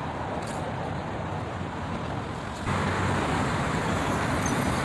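Steady road traffic noise from passing cars, becoming a little louder about two and a half seconds in.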